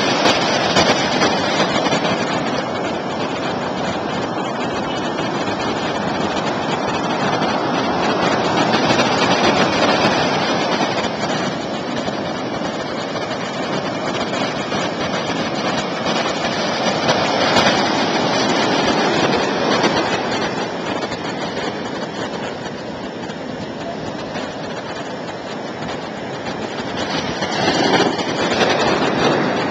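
Loud, steady rushing noise of wind and rough storm surf, heard from a moving vehicle, swelling and easing every several seconds.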